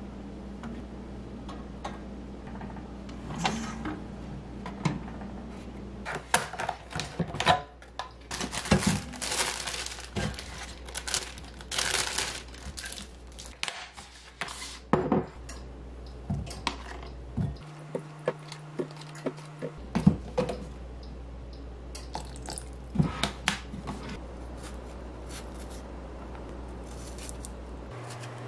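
Kitchen handling noises: a plastic bag of strawberries crinkling and rustling, mixed with scattered clicks and clinks of dishes and utensils. The busiest stretch is in the middle, and it thins out toward the end.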